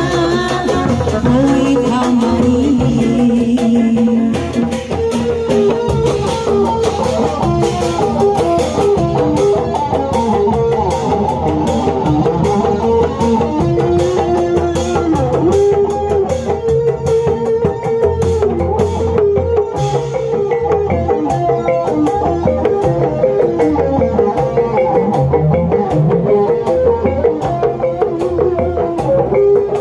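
Sundanese kuda renggong band music: hand drums keep a steady, busy beat under melodic instruments playing a medley tune.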